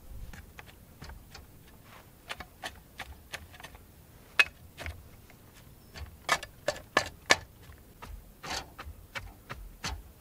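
Shovel backfilling a trench with dry dirt and rocks around a rebar grounding rod: irregular clicks and knocks of the blade and stones, the sharpest about four seconds in and a quick run of knocks between six and seven and a half seconds.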